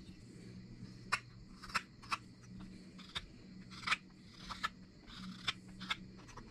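Carving knife slicing shavings from a cherry-wood spoon blank: about ten short, sharp, irregular cuts, over a faint steady low hum.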